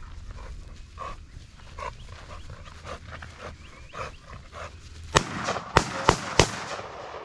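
Hog dogs barking in short repeated calls, then four quick rifle shots from an AR-style rifle about five seconds in, the last three fired in fast succession at a hog that runs out and is missed.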